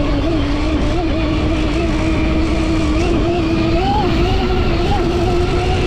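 Electric dirt bike's QS138 brushless motor and gear reduction whining under throttle, the pitch holding fairly steady with small rises and dips, a slightly higher rise about four seconds in. Underneath is a steady low rumble.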